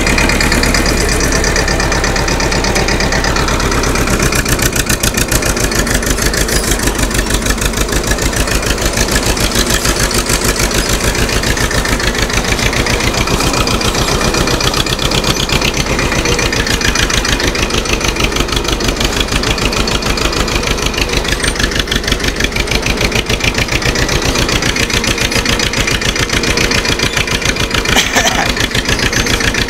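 TAFE 25 DI tractor's direct-injection diesel engine running steadily, with a fast, even beat of firing pulses.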